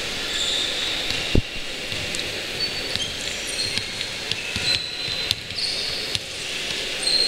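Basketball play on a wooden court: a ball bouncing and sneakers squeaking in short, high squeals over a steady hiss, with one loud thump about one and a half seconds in.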